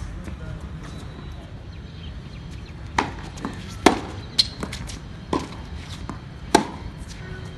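Tennis rally on a hard court: a tennis ball hit by rackets and bouncing on the court, several sharp pops from about three seconds in. The loudest strikes come near the middle and near the end, over a steady low background noise.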